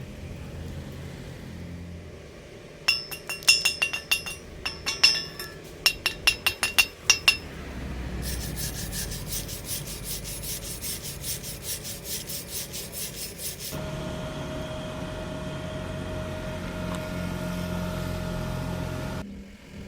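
Metalworking on steel tube: about a dozen sharp taps on steel ring out over four seconds, followed by a fast, even scraping for about five seconds. A steady motor hum then takes over and cuts off shortly before the end.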